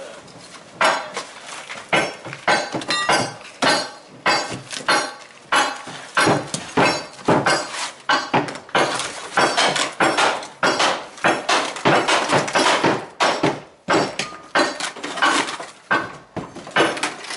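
Irregular sharp knocks and cracks, about one or two a second, as old roofing is broken up with a hammer: brittle roofing debris cracking and clattering.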